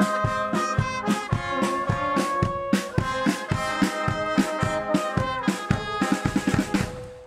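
Wind band music: brass and reed instruments holding sustained notes over a steady drum beat, with a quick run of drum strokes near the end before the music dies away.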